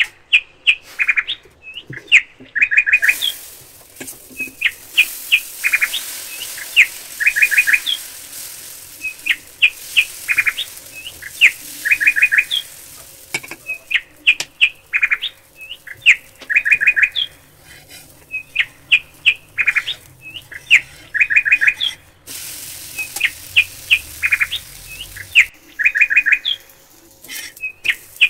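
Small birds chirping: short high calls and quick runs of three or four notes, repeating again and again.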